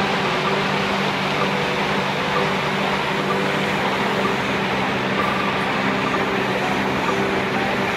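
Creek water rushing steadily over and between boulders in small cascades, an even unbroken rush.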